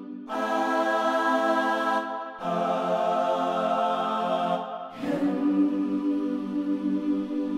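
Logic Pro's 'South African Singers' sampled choir voice singing held chords, its vowels shifted through 'ahh', 'laah' and 'himm' so the phrase sounds like 'Elohim'. Three sustained chords, with new ones starting about a quarter second, two and a half seconds and five seconds in.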